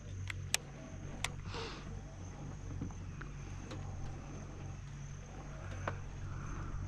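Steady high-pitched insect drone over a low rumble, broken by a few sharp clicks, three in the first second and a half and one near the end.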